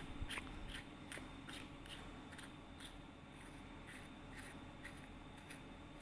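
Faint, irregular small clicks and light scrapes from fingers working the battery housing of a Boya BY-M1 lavalier microphone, pushing and twisting it open to fit its button cell.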